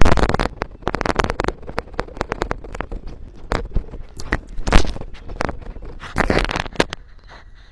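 Tasmanian devil biting and gnawing at a handheld microphone's mesh grille, right on the mic: a rapid, irregular run of loud clicks and crackles.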